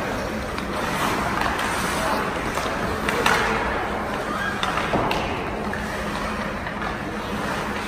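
Ice hockey play in a rink: skates scraping on the ice, with sharp knocks of sticks and puck about three and five seconds in, over murmuring spectator voices.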